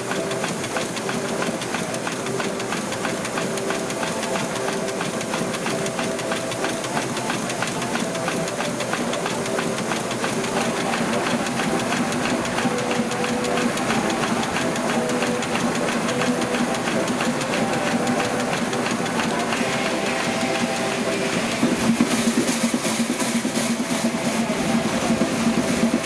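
Burrell steam traction engine running under belt load, driving a sawmill, with a fast even beat and steam hiss. The sound grows louder and brighter about three-quarters of the way through.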